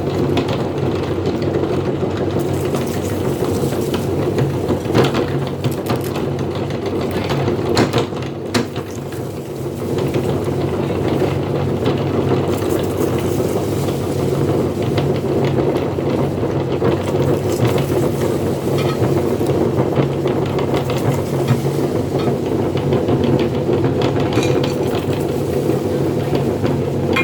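Electric meat grinder running steadily with a motor hum, grinding up snack food, with a few sharp cracks along the way.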